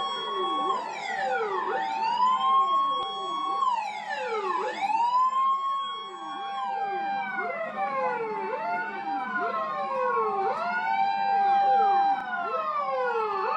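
Several emergency-vehicle sirens sounding at once, their wails rising and falling in overlapping sweeps, with some holding a steady tone between glides.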